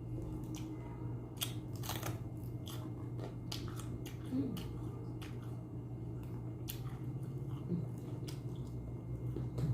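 Close-up mouth sounds of someone eating a chicken shawarma wrap: irregular bites, crunching and chewing, over a steady low hum.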